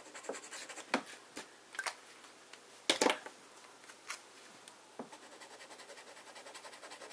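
Scattered small clicks and knocks as fountain pens are handled on the desk, the loudest about three seconds in. Then, from about five seconds in, the faint quick back-and-forth scratching of a Noodler's Ahab flex nib on paper, about five strokes a second, filling in an ink swatch.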